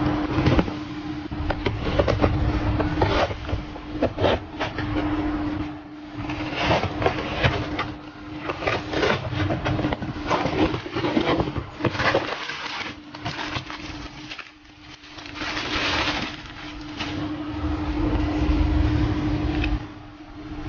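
Packaging being handled and opened: crinkly rustling, scraping and many small clicks and knocks, over a faint steady hum.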